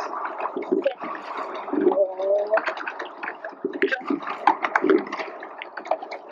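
Water splashing around a rowing boat: many short, irregular splashes and knocks, with an indistinct voice partly heard.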